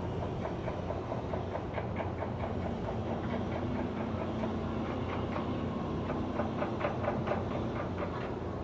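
Heavy machinery running with a steady low rumble and a rapid, rhythmic metallic clicking, several clicks a second, like a carriage rolling on rails.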